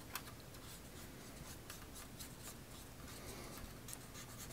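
Faint rubbing and a few light ticks from the tip of a pen-style glue-activator applicator being worked along the crack in a Commodore 64's plastic case.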